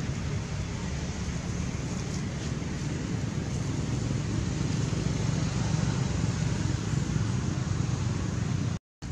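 Steady, low rumbling background noise.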